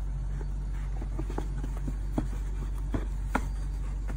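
Hands handling a cotton dust bag and a cardboard gift box: soft rustling with about a dozen light taps and clicks, the loudest a little over two and three seconds in, over a steady low hum.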